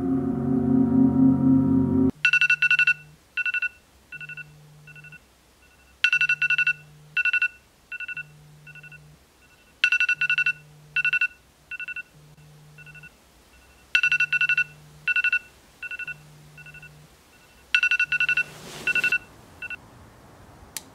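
Electronic ringtone: a cluster of quick high beeps about every four seconds, each trailing off into fainter echoing repeats, over a low pulsing tone about once a second. It follows a couple of seconds of sustained musical tones that cut off suddenly, and a short rush of noise comes near the end.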